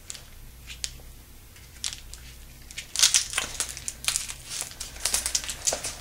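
Packaging crinkling as it is handled: a few light clicks at first, then a dense run of crackling rustles from about halfway.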